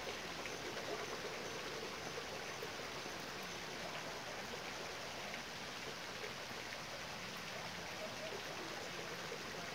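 Steady rushing water noise, with no distinct events.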